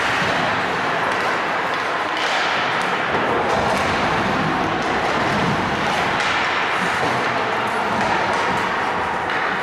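Ice hockey play in a rink: sticks and puck striking in frequent sharp knocks over a steady scrape of skates on the ice, with players' voices in the echoing arena.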